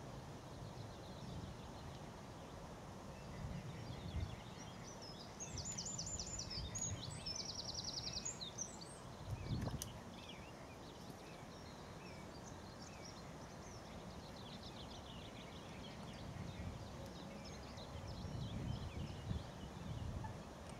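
Outdoor ambience of small birds singing rapid, high trills in short bursts over a steady low rumble, with one brief low thump about ten seconds in.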